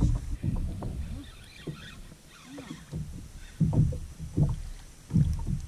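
Water slapping against a plastic fishing kayak's hull in irregular low thumps and surges, loudest in the second half.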